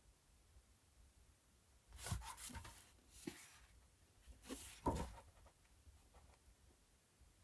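Paper pages of a book being flipped: three short rustling page turns about two seconds in, with quiet between and around them.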